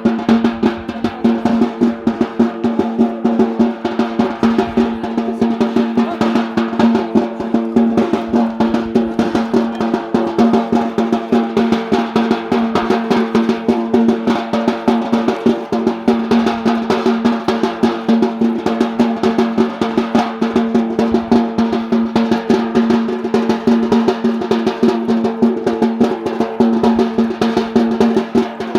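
Fast, unbroken drumming of Yemeni bara' dance music, over a steady held pitched tone that drones without a break.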